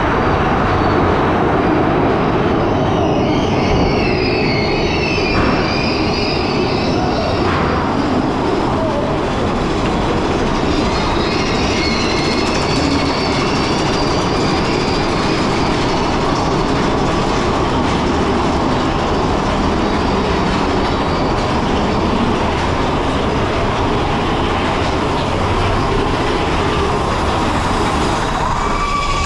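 Mine-train roller coaster train running along its track, heard from a seat on board: a steady rumble and rattle of the cars, with wheels squealing at times, around a few seconds in and again in the middle.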